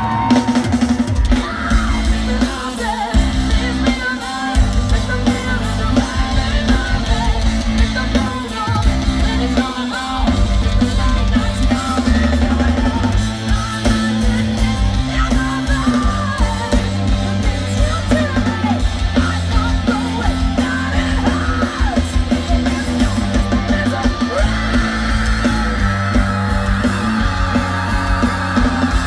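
Hard rock band playing loud live: a pounding drum kit and electric guitars, with vocals yelled and sung over them.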